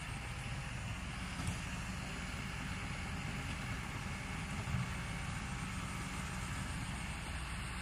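Kobelco SK200-10 excavator's diesel engine running steadily at low revs, with two short knocks, one about a second and a half in and another near five seconds.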